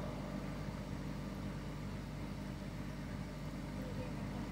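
Panda portable spin dryer running at full speed, about 3,200 rpm, spinning water out of a load of washed laundry: a steady motor and drum hum.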